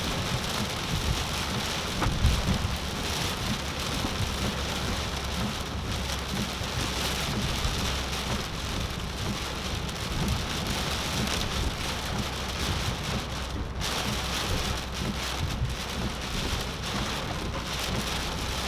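Heavy tropical-storm rain falling steadily on a moving car, heard from inside, over a low steady road and engine hum. There is one sharp, louder thump about two seconds in.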